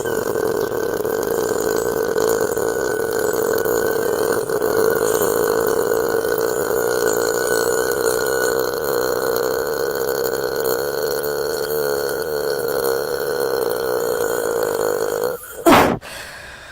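A woman's long, continuous burp at a steady pitch. It cuts off about 15 seconds in with a short sharp sound as she chokes, which she says is what stopped it.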